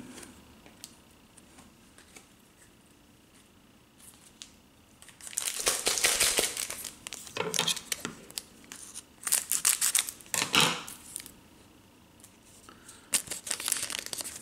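Foil wrapper of a hockey card pack crinkling in the hands and being cut open with scissors, in several separate bursts after a few quiet seconds.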